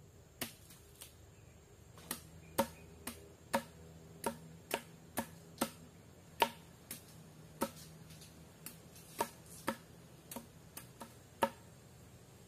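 A series of sharp, separate clicks or taps at an uneven pace, roughly one or two a second, over a faint steady background.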